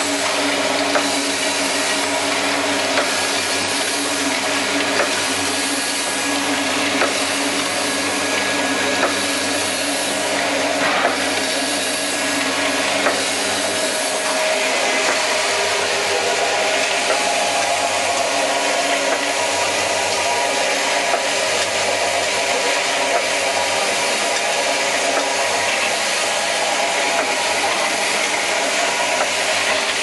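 Automatic rotary vial powder filling, plugging and capping machine running: a steady motor hum and whir, with occasional light clicks from the indexing mechanism and vials.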